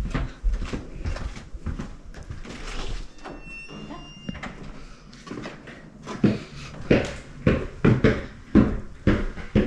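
Footsteps on a hardwood floor, then a door being opened about three seconds in, with a short high squeak. From about six seconds, heavier footsteps come at an even pace, about one every two-thirds of a second, going down a flight of stairs.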